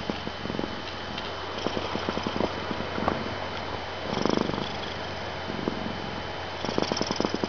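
Domestic cat purring and snoring: a rough, rapid pulsing that swells and fades with each breath, every two to three seconds, loudest about four seconds in and again near the end.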